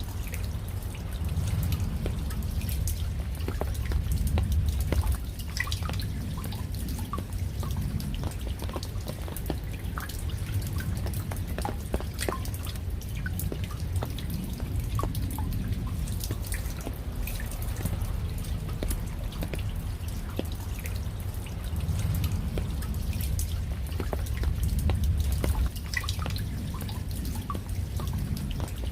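Rain falling, with many separate drops dripping and tapping at irregular moments over a low rumble that swells twice.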